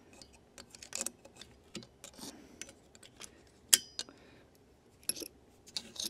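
Small screwdriver clicking and scraping against the metal contacts and plastic housing of an old AC contactor, prying at contacts that are stuck closed. Scattered light clicks, the sharpest with a short ring about three and a half seconds in.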